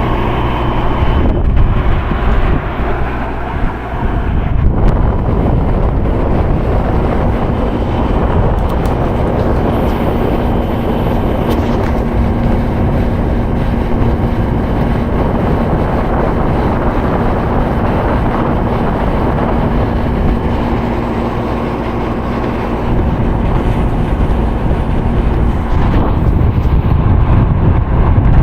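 Daewoo DWC-0546FCL 5000 BTU window air conditioner running, its fan blowing steadily. A steady hum joins about six seconds in and drops out near the end.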